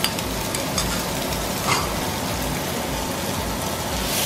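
Chopped onion, garlic and ginger sizzling in hot oil in a nonstick wok, a steady hiss as the onion goes in and is stirred, with two light clicks, one near the start and one under two seconds in.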